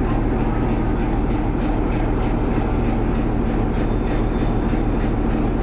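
Class 47 diesel-electric locomotive's Sulzer twelve-cylinder engine idling with a steady low hum.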